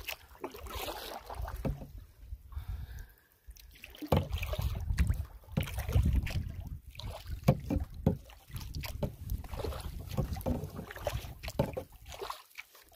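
Wind gusting on the microphone and small waves slapping against the hull of a Swift Solo Prospector canoe under way, with scattered knocks and splashes. The wind drops away briefly about three seconds in.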